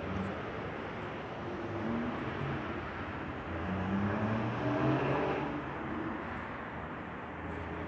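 Road traffic noise, with a vehicle passing close by: its engine and tyres grow louder to a peak about five seconds in, then fade.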